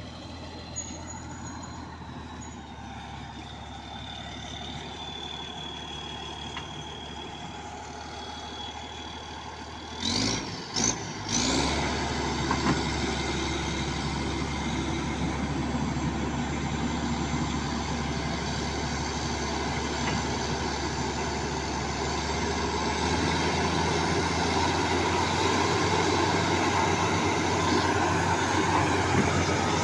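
Bulldozer's diesel engine running steadily at a low speed. About ten seconds in, a few short, loud bursts come, and the engine then runs louder and rougher, louder still near the end.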